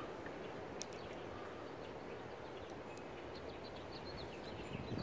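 Steady outdoor background noise with faint, repeated bird chirps, and a single light click about a second in.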